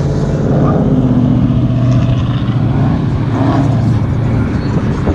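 A car engine idling loudly and steadily, then fading out about four and a half seconds in.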